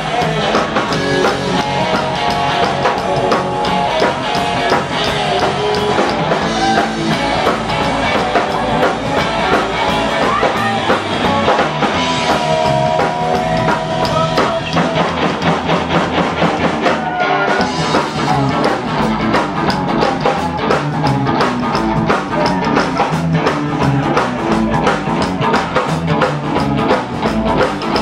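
Live rockabilly band playing loudly, with a Gretsch hollow-body electric guitar to the fore over a steady drum kit beat, in an instrumental stretch of the song.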